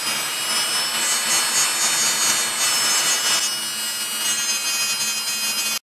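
Mini rotary tool running at speed with a sanding disc, grinding down the soldered joint of a small brass photo-etched part: a steady high whine with the rasp of sanding. The whine shifts slightly lower about three and a half seconds in, and the sound cuts off suddenly near the end.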